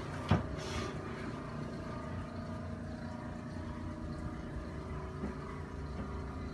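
A steady, low mechanical hum with a few faint, even tones. A single sharp click comes about a third of a second in, followed by a brief soft rustle.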